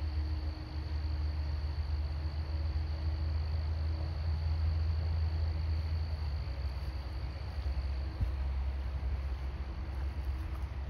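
Outdoor ambience: a low, steady rumble with a thin, steady high-pitched tone above it that fades out about eight seconds in.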